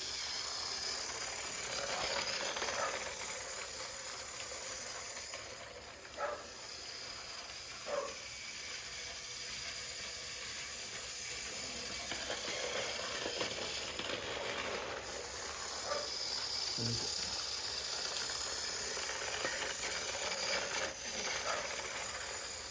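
Battery-powered Tomy toy engine running on plastic toy track: a steady small-motor whir and rattle, with a few short knocks and clicks along the way.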